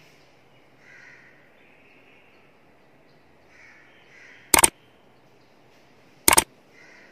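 Two sharp mouse-click sound effects about a second and a half apart, from the like-and-subscribe button animation, over faint background noise.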